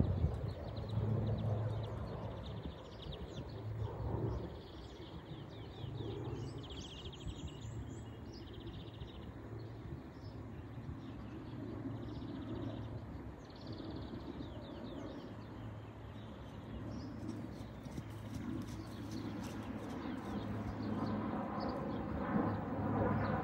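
Small birds chirping in short, repeated trills over a patchy low rumble, with a pitched sound carrying several tones coming in near the end.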